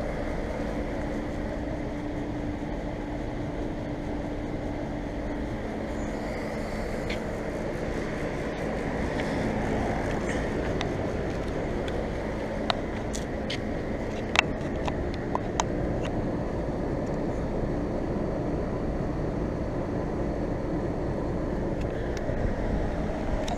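Central air conditioner condensing units running: a steady hum of compressor and fan, with a few sharp clicks about halfway through.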